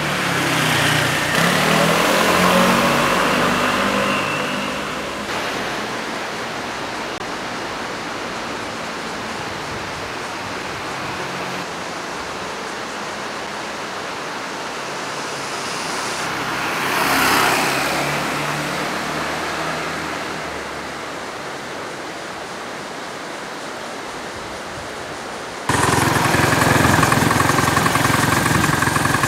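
Motor scooters passing close by one at a time, each engine swelling and fading, about two seconds in and again around seventeen seconds, over a steady hiss. Near the end the sound cuts abruptly to a louder engine running steadily close by.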